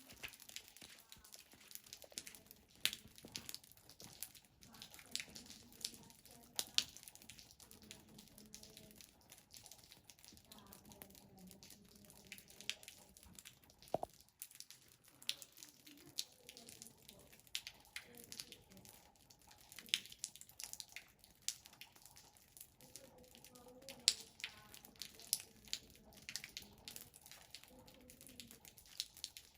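Snow crunching and crackling in irregular sharp clicks throughout, as a small child plays in it, with a faint voice at times underneath.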